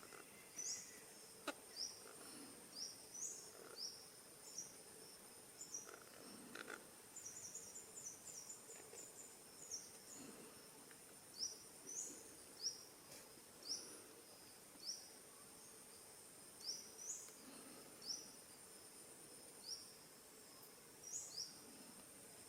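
Faint forest ambience: a steady high-pitched insect drone, with short high rising chirps repeated about once a second and a quick run of them about seven to nine seconds in. A few faint knocks now and then.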